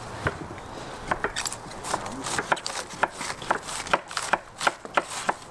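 Cabbage being shredded with a hand-held metal shredder on a wooden board: a crisp, crunchy stroke about twice a second.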